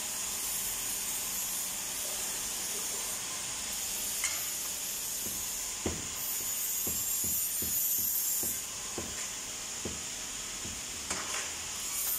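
Steady hiss of factory-floor background noise. About halfway through comes a run of short, low thumps, and a few sharp clicks follow near the end.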